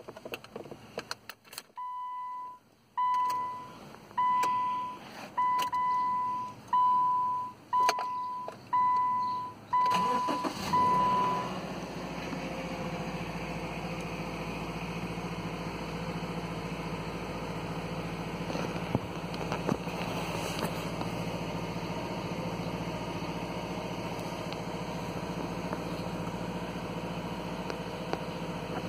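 Subaru Outback's key-in-ignition chime beeping about once a second, a steady single-pitched bell tone, after a few clicks of the key going into the lock. About ten seconds in, the horizontally opposed engine cranks and starts, and the chime stops. The engine then settles into a steady fast idle near 2,000 rpm.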